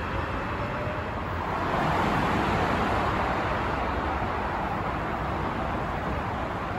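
AREX airport railroad train pulling out of the station, a steady rumble and rushing noise that swells about two seconds in and then slowly eases.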